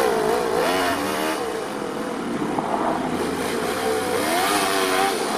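Toyan FS-L200 two-cylinder four-stroke nitro engine in an RC truck, its pitch rising and falling as the throttle is worked while the truck drives off. The engine is still being run in, on about its fourth tank of fuel.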